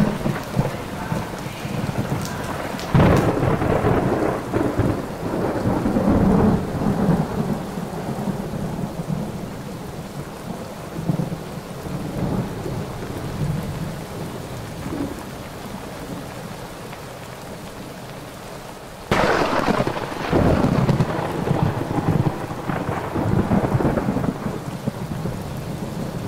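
Thunderstorm: steady rain with two loud thunderclaps, one about three seconds in and another about nineteen seconds in, each rumbling on for several seconds.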